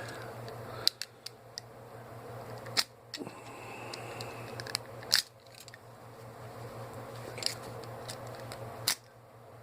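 A knife cutting through a compressor's plastic air hose at its brass fitting: a handful of sharp clicks and crunches spread out, over a faint steady low hum.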